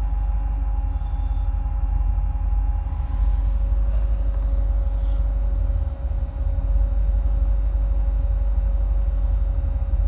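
2008 Corvette C6's LS3 V8, breathing through long-tube headers with no catalytic converters, idling with a deep, steady exhaust rumble and a steady whine alongside. The idle is rough, and the owner is unsure whether that is normal or a fault.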